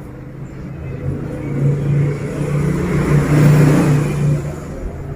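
A motor vehicle passing by outside: its engine grows louder to a peak a little past the middle, then fades away.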